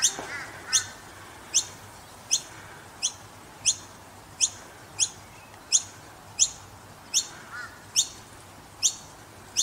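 Noisy miner fledglings calling: a sharp, high, downslurred call repeated evenly about every three-quarters of a second. A few softer, lower chirps come at the very start and again about three-quarters of the way through.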